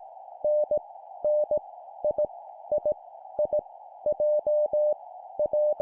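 Morse code (CW) practice tones at 17 words per minute: a single steady tone keyed on and off in short dots and longer dashes, grouped into random letters each sent three times. The tones sit over a faint steady hiss.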